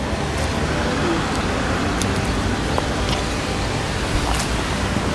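Steady hum of road traffic, with a few faint light clicks.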